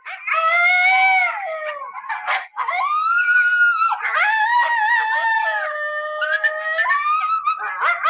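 Coyotes howling: long wavering, gliding howls with several voices overlapping, broken by short yipping calls.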